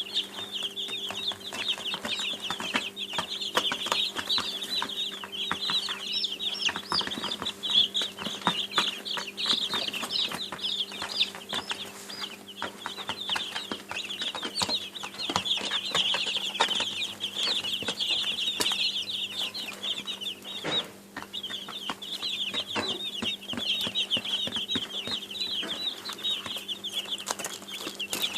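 A brood of baby chicks peeping continuously, many short high-pitched cheeps overlapping, with a brief lull about three quarters of the way through. A steady low hum and scattered light clicks run underneath.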